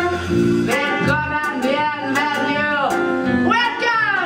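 A woman singing held, bending notes over a live stage band with bass and drum kit, with sharp percussion hits through it.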